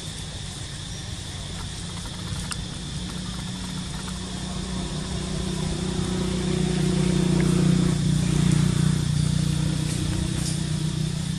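A motor engine passing by: a low, steady drone that builds to its loudest about eight seconds in and then eases off.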